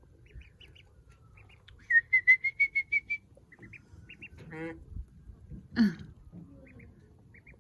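Newly hatched ducklings peeping, with short high chirps throughout and a quick run of about eight loud peeps about two seconds in. Two lower, longer calls come near the middle.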